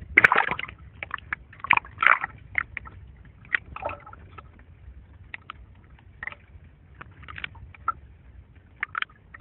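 Water splashing and bubbling as the camera dips under the sea surface, then scattered short pops and clicks of water over a low underwater rumble.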